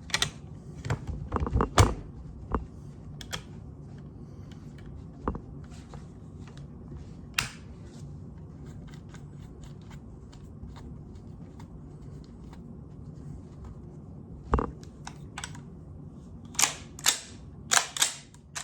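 Sharp metallic clicks and knocks from handling the reassembled Remington Model 12A .22 pump-action rifle. There is a cluster of clicks over the first two seconds, a few single clicks in the middle, and another run of louder clicks near the end, over a low steady hum.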